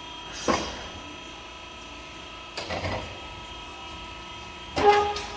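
Several sudden metal clanks over a steady mechanical hum. The last clank, near the end, is the loudest and rings briefly.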